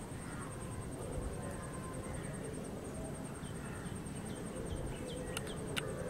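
Outdoor ambience: a steady, rapidly pulsing high insect trill over a low rumble. In the second half come a series of short, falling bird chirps, and near the end two sharp clicks.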